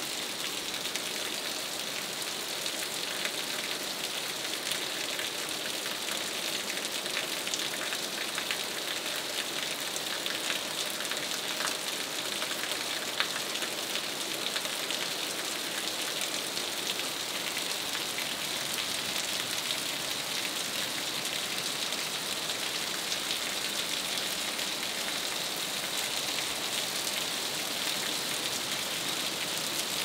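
Steady rain falling on the leaves of dense broadleaf trees, heard as an even hiss with many fine drop ticks.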